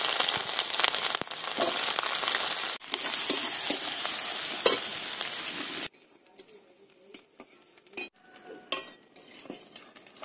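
Chopped onion sizzling loudly in hot oil in a metal kadai as it is stirred with a metal spatula. About six seconds in the sizzle drops suddenly to a faint hiss, with occasional light scrapes and clicks of the spatula against the pan.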